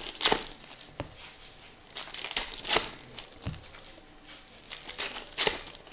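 Foil trading-card pack wrappers crinkling and being torn open, in several short crackling spells about a quarter second in, around two to three seconds in, and near the end.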